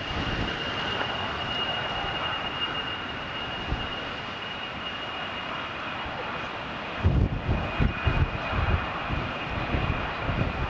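Two F/A-18 Hornets' jet engines running on the runway, lined up for takeoff: a steady high whine over a broad rush. Uneven low rumbling comes in about seven seconds in.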